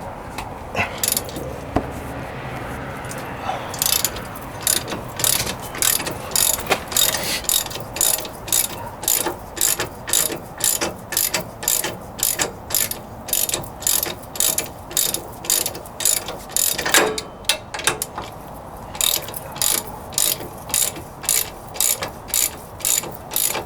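Hand socket ratchet clicking as it backs out the already-loosened wheel hub bolts, in short strokes about twice a second, with a brief pause about three-quarters of the way through.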